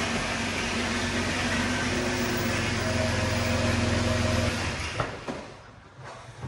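Dodge Caravan minivan's engine running steadily as it creeps into a garage bay and stops, then cut off about four and a half seconds in, followed by a click or two.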